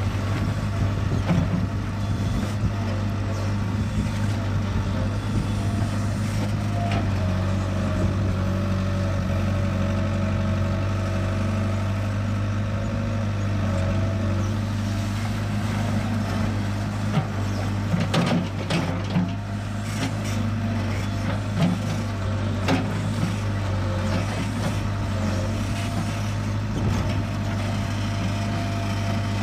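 Kobelco SK60-1 crawler excavator's diesel engine running steadily, its note stepping slightly up and down as the load changes. A few sharp knocks come about two-thirds of the way through.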